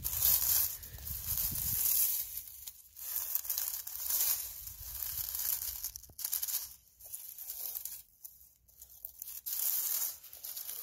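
Dry oak leaves and pine needles rustling and crackling in a run of short bursts as a hand brushes through them.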